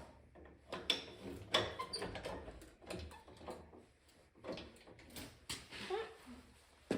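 Irregular light knocks, clicks and short creaks of hand work on the tractor, with no steady machine running.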